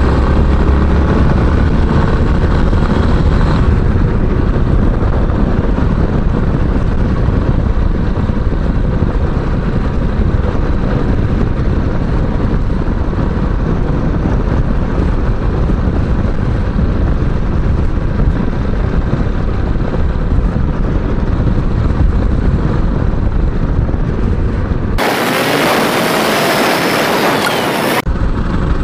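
Yamaha Serow's single-cylinder engine running under way, mixed with steady wind and road noise. Near the end, about three seconds of a brighter, hissing sound with faint whining tones cut in.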